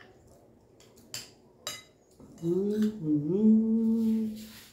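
Two light clinks of a metal spoon against a glass plate, then a person hums a drawn-out closed-mouth 'mmm' for about two seconds. The hum dips briefly in pitch, then holds steady.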